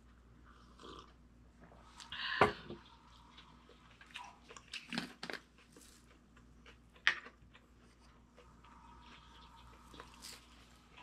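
Tabletop handling sounds: a sharp knock about two seconds in, the loudest, then scattered clicks and taps as a seasoning shaker is uncapped and shaken over food.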